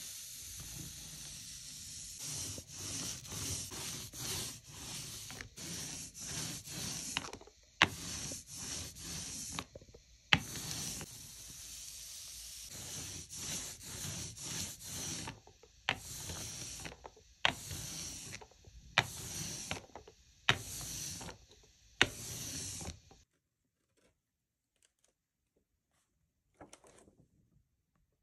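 Rubber brayer rolling ink across a large carved linoleum block: a rasping, hissing sound in repeated strokes, about one every second, with a sharp click between some of the strokes. It stops about 23 seconds in.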